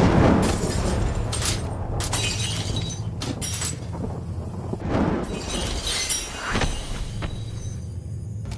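Layered fight sound effects: a heavy crash at the start, then repeated shattering and crackling impacts over a steady low hum.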